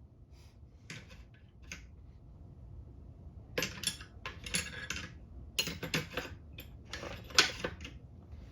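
Metal wrenches clinking and rattling against each other as they are handled, in a few light clicks at first and then in busy bursts, loudest near the end.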